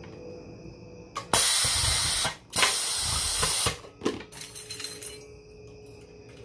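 Edward Segal Model 3P6 pneumatic grommet press cycling to set a grommet and washer in Coroplast: two loud bursts of air hiss, each about a second long, followed by a few light clicks.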